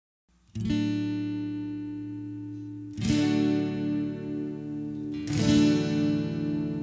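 Background music: acoustic guitar chords strummed about every two and a half seconds, each left to ring.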